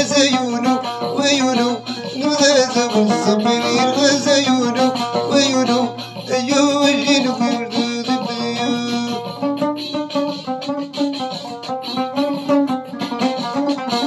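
Moroccan loutar (outar), a plucked lute, playing a folk melody in quick plucked notes.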